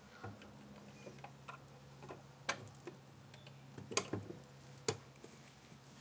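Faint, scattered clicks and taps of plastic as a Mercedes 300D instrument cluster and its window are handled in gloved hands. The sharpest ticks come about two and a half, four and five seconds in, over a low steady hum.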